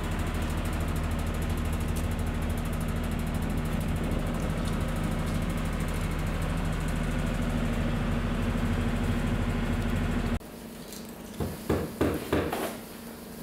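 Cellulose insulation blowing machine running with a steady drone. It cuts off abruptly near the end, leaving a quieter room where a few sharp knocks follow.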